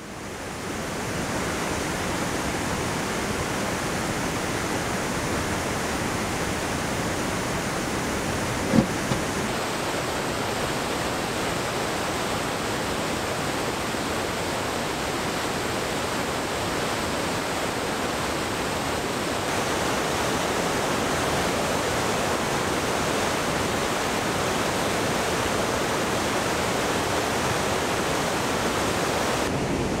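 Waterfall rushing steadily, an even roar of falling water. A single short knock sounds a little under nine seconds in.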